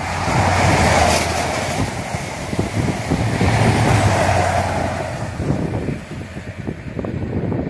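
HST diesel train with Class 43 power cars passing close by, a steady diesel engine drone over wheel-on-rail rumble. It is loudest about a second in and again around four seconds in, then fades as the train moves away. Some wind buffets the microphone.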